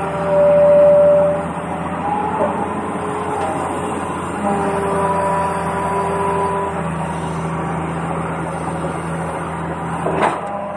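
Toy excavator and toy truck running, with a steady mechanical hum and held horn-like tones, loudest in the first second. A short sharp knock comes near the end.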